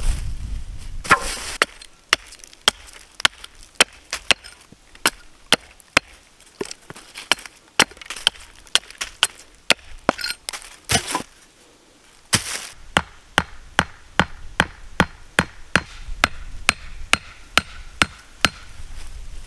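Hatchet chopping wood on a stump chopping block: a long run of sharp blows, about two a second, with a few brief rustles between.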